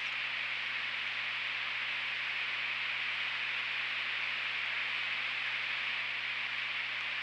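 Steady hiss of rain falling on an osprey nest, picked up by the nest camera's microphone, with a faint low hum underneath.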